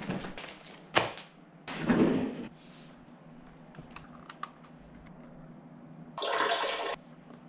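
Handling noises at an office desk: a rustle as an office chair is pulled out, a sharp knock about a second in, a longer scraping rush around two seconds, a few faint clicks of a laptop mouse and keys around four seconds, and a short noisy rush near the end.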